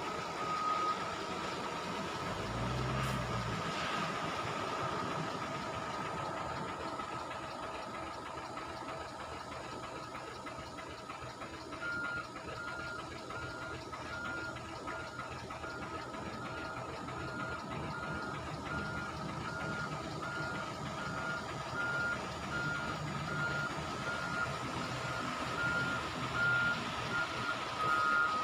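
A vehicle reversing alarm starts beeping about once a second about twelve seconds in, as heavy diesel trucks run. A steady high tone sounds throughout.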